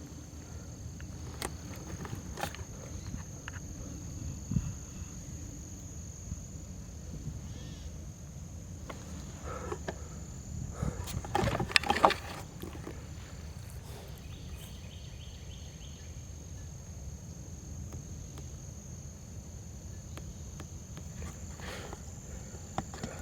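Insects buzzing steadily in a high thin tone over a low rumble, with scattered crunching footsteps through brush and a louder flurry of crackling about eleven to twelve seconds in.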